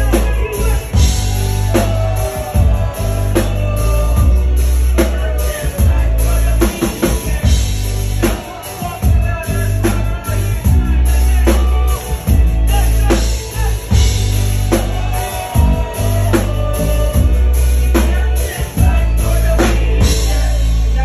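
Live band playing loud through a club PA, heard from within the crowd: heavy bass, drum kit, electric guitar and a lead singer on the microphone.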